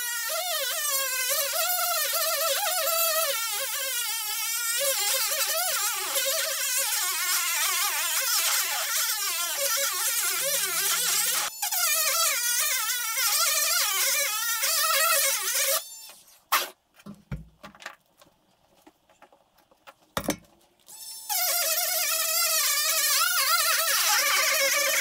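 Dremel rotary tool running at high speed, a high-pitched whine that wavers in pitch as it grinds out the hole to fit a larger horn. It stops about two-thirds of the way through, leaving a few light clicks, then starts up again a few seconds later.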